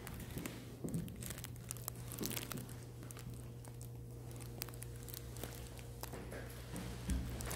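Faint footsteps creaking and clicking on hardwood floors in an empty room, with light rustling, over a steady low hum. The steps get a little louder near the end.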